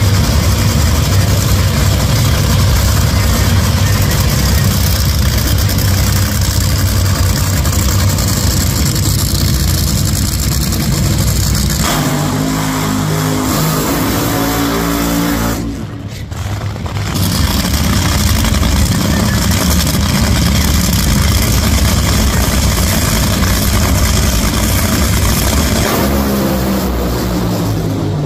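Top Fuel dragster's supercharged nitromethane V8 engine running very loudly, its revs stepping up and down at times between stretches of steady engine noise.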